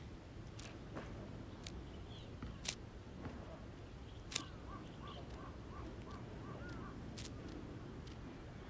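A bird calling a quick run of about eight short, arched notes a few seconds in, over a steady low outdoor background noise, with a few sharp clicks scattered through.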